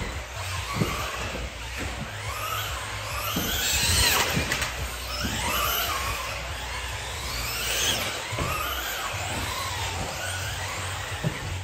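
Schumacher CAT L1R electric four-wheel-drive RC buggy lapping a carpet track: the motor whine rises and falls with each burst of throttle and braking. Short knocks come from the car landing off jumps and hitting the track, over a steady low hum.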